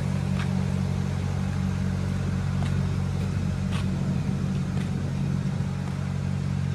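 A motor running steadily with a low hum, with a few faint short clicks over it.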